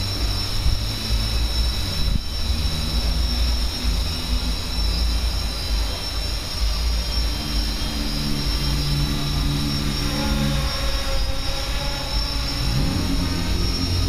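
Hexacopter in flight: six brushless motors (2830-size, 1000 kV) spinning three-blade 8×4.5 propellers, a steady whirring drone whose tone steps up and down in pitch as the motor speeds change, with a rising glide near the end.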